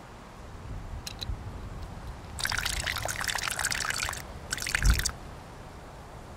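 Water poured from a bottle into a metal camping mug: two light clicks, then a pour lasting almost two seconds, and a shorter second pour ending in a low thump about five seconds in.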